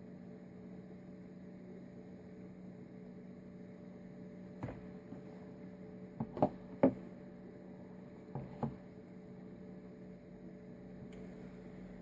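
A steady electrical hum, with a few short light knocks and clicks about five to nine seconds in.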